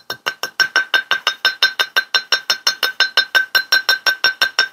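Quick, light mallet taps on copper bangle wire around a metal bangle mandrel, about eight a second in an even rhythm, each tap with a short high ring. This is the bangle being rounded out on the mandrel.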